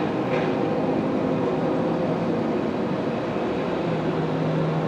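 Steady vehicle noise, an even rumble with a low hum that comes in near the end.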